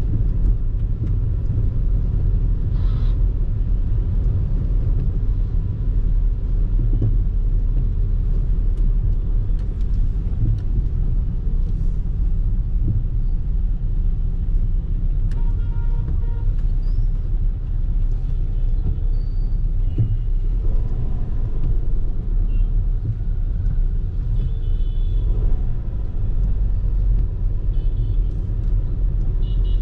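Steady low rumble of a vehicle driving along a road, with a few short horn toots now and then, the clearest about halfway through.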